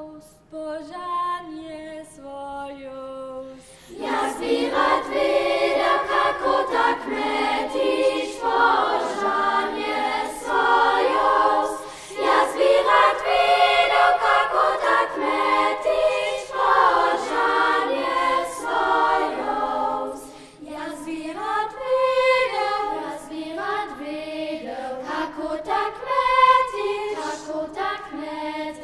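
Children's choir singing. A single quiet vocal line opens, then the full choir comes in about four seconds in, singing in several parts at once.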